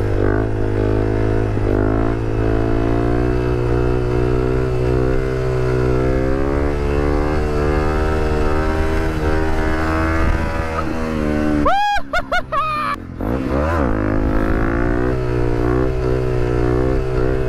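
Single-cylinder dual-sport motorcycle engine running under way, its pitch drifting up and down with the throttle over a steady low rumble. About twelve seconds in the engine is blipped sharply several times, pitch jumping up and down, then rises and falls once more before settling, as the rider brings the front wheel up into a wheelie.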